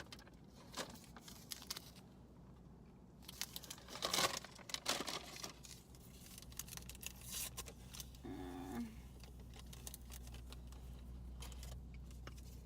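Sugar packets being torn open and crinkled, in scattered short rustles and clicks.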